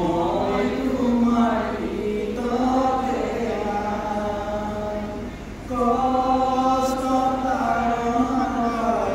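Voices singing a slow, chant-like song with long held notes; a new phrase begins a little before the sixth second.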